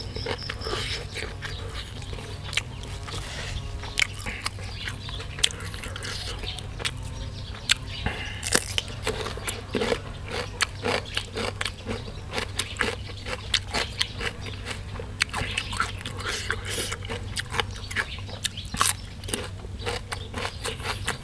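A person chewing crunchy raw vegetables close to the microphone: a steady run of short crisp crunching clicks.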